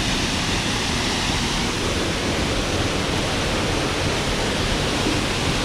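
Waterfall rushing steadily: a continuous, even noise of falling water.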